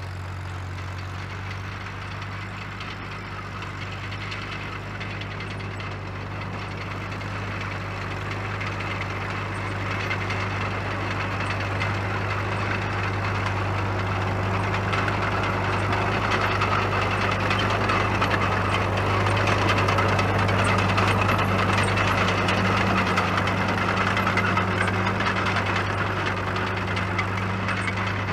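1949 Caterpillar D2 crawler's four-cylinder diesel engine running steadily under way, running as it should. It grows louder over the first two-thirds as the crawler comes closer, then eases off slightly near the end.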